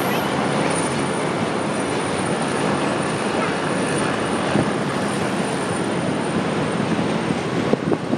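Police helicopter hovering close by, its rotor and engine making a steady, unbroken noise.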